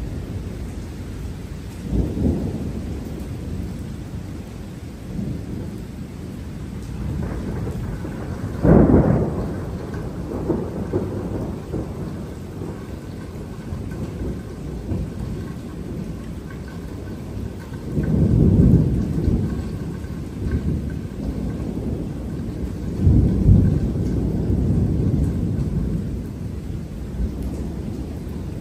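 Thunder rumbling over steady rain. There are four rolls: the loudest and sharpest comes about a third of the way in, and the last two are long, rolling rumbles.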